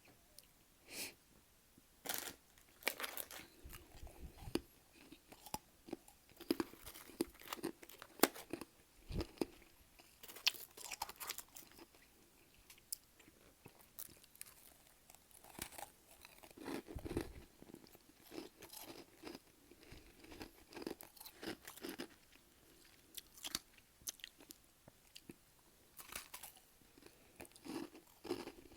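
Close-up crunching and chewing of freezer frost in the mouth: many irregular crisp crunches with short gaps.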